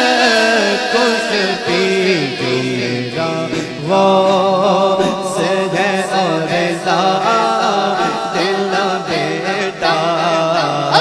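A male naat reciter singing an Islamic devotional song without instruments, amplified through a microphone, in long, ornamented notes that slide in pitch. He starts a new phrase about four seconds in.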